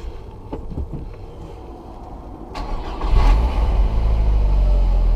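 A Mk4 VW Golf's engine being started: a short crank about two and a half seconds in, then it catches and settles into a steady idle. A few light clicks come before it.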